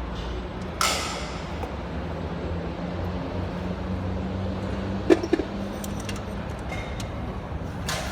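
Metal tools clanking on heavy machinery over a steady low mechanical hum: one sharp ringing clank about a second in, then a couple of quick knocks around five seconds.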